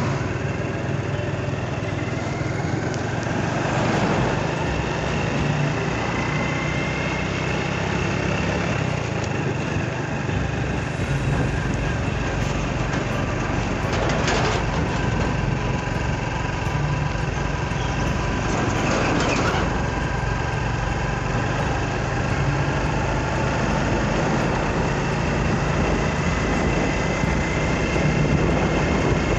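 Motor scooter riding along a road: its engine hums steadily under wind and road noise. A few brief louder swells come from passing traffic or bumps.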